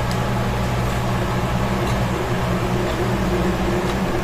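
Steady hum of a running household appliance, with a few low tones held level and no change in pitch.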